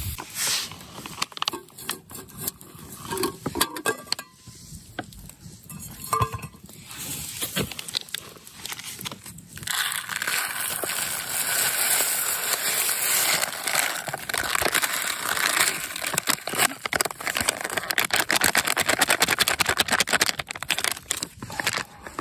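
Wood fire crackling and popping under a cooking pot. From about ten seconds in comes a denser, steady hiss full of small ticks as dry jambalaya rice mix pours from its pouch into a pot of hot water.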